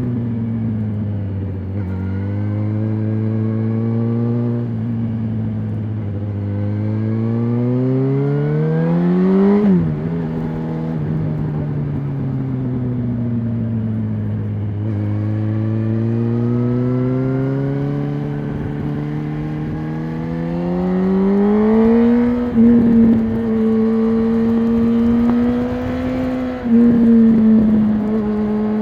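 2006 Yamaha R1's 998 cc inline-four on its stock exhaust, heard from the moving bike. It runs steadily, pulls up through the revs to about twice the pitch, and falls sharply about ten seconds in. It then climbs again and holds high revs near the end with a brief dip.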